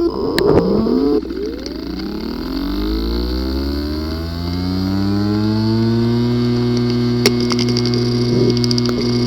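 Hard drive with a physically damaged disk assembly powering up: the spindle motor's whine rises in pitch over about six seconds and then holds steady, with a few sharp clicks and a short run of fast ticks later on, the clicking sound typical of disk assembly damage.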